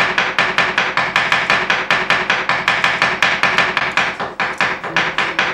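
Kitchen knife chopping cucumber on a wooden chopping board: fast, even strokes at about five a second.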